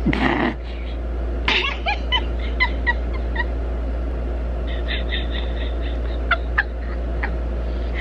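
A woman giggling in several bursts of quick, high-pitched laughs, over a steady low hum.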